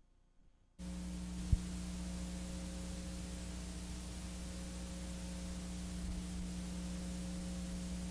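Steady tape hiss and electrical hum from VHS playback, switching on suddenly about a second in, with a single sharp click just after.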